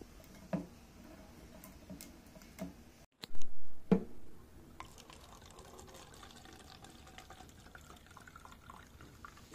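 Red wine pouring from a glass bottle into a paper cup in a thin, steady trickle as the cup fills. A loud bump comes just after three seconds in, before the pour.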